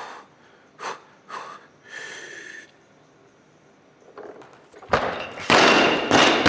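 A lifter's sharp breaths while holding a 141 kg barbell in the front rack. About five seconds in, the loaded barbell with bumper plates is dropped onto the lifting platform: a loud crash and bouncing, with a ringing tone through it.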